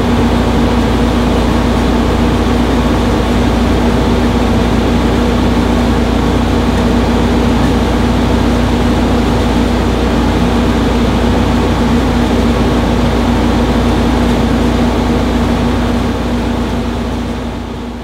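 Frigidaire 15,100 BTU window-mounted air conditioner running on high: a steady rush of fan air over a steady low hum, fading down near the end.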